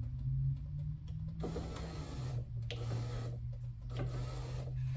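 Electric power-window motor and regulator in a 2003 Chevrolet Silverado's driver door running under direct power, giving a steady low hum, with rougher mechanical noise coming and going in three stretches from about a second and a half in. The regulator is the one being replaced for making a noise, traced to its cable fraying and popping.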